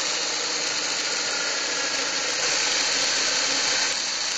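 Drill press running with its bit boring a hole through a small wooden block, a steady motor and cutting noise that grows a little louder midway.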